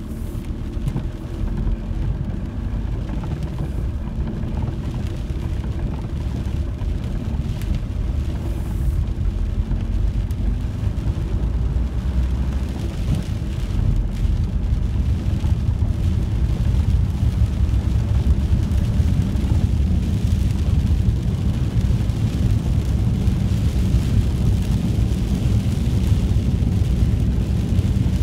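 Cabin sound of a VW T4 campervan driving on a wet road in rain: a steady low rumble of engine and tyres with a hiss of rain and spray, growing louder and hissier over the second half.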